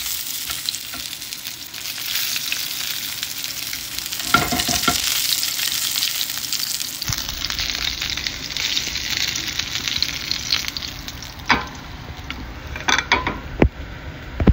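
A5 wagyu steak sizzling and crackling as it sears in oil in a nonstick frying pan. There are a few sharp knocks, most of them near the end.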